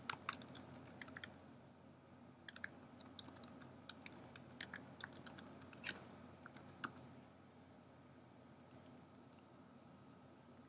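Faint typing on a computer keyboard: quick, irregular key clicks for about seven seconds, then a few scattered clicks near the end.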